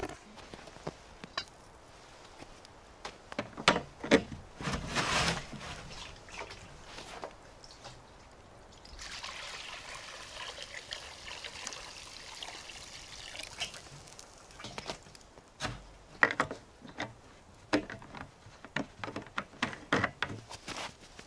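Water poured from a plastic jerrycan into a cooking pot: a steady pour starting about nine seconds in and lasting about five seconds. Scattered knocks and handling noises before and after it.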